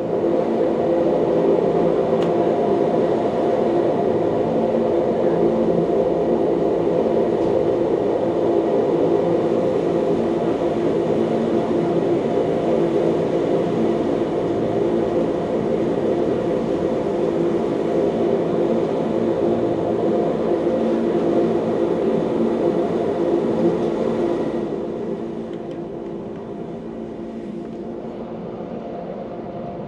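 Electric rack-railway train of the Wengernalp line running steadily, a hum with several steady tones over a rumbling noise. It turns noticeably quieter near the end.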